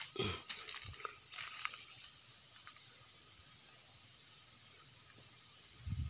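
Dry grass and twigs crackling and crunching for about the first two seconds as someone moves through brittle vegetation, then a steady high insect chorus.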